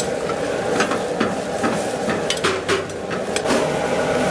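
Minced meat (keema) sizzling and frying in oil in a steel frying pan, with a metal spoon scraping and clinking against the pan as it is stirred. Near the end the sizzle grows as chicken pieces go into the pan.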